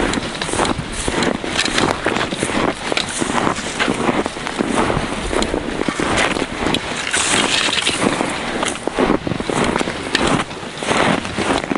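Footsteps crunching through deep snow, a quick run of irregular crunches and scrapes, with the rustle of clothing and gear as he walks.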